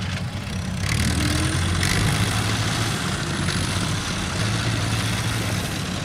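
Kubota rice combine harvester running, its diesel engine a steady low hum, with a rushing noise coming up over it about a second in.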